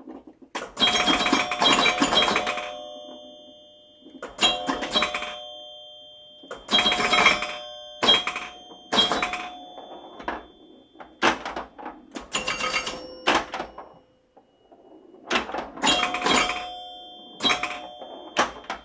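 Repeated bursts of quick clattering knocks, each leaving a short, bright ringing tone of a few clear pitches, coming about every two to three seconds.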